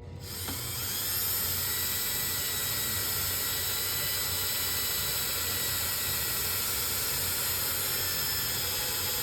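Cordless drill-driver running steadily with a high whine, driving a small Robertson screw into a hollow aluminum post.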